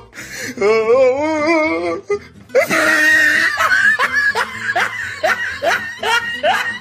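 Comedy sound-effect laughter: first a wavering, wobbly laugh, then from about two and a half seconds in a run of quick repeated laughs.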